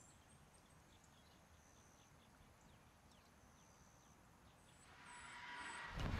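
Near silence: faint open-air ambience with scattered small high chirps, then a rising rush of noise over the last second and a half that turns suddenly louder and deeper at the very end.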